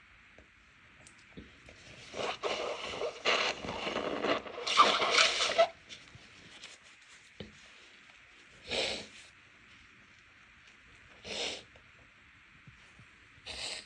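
A person stifling a fit of sneezes, nose irritated by dust and cleaning products: a run of muffled, breathy bursts between about two and six seconds in, then three shorter ones a few seconds apart.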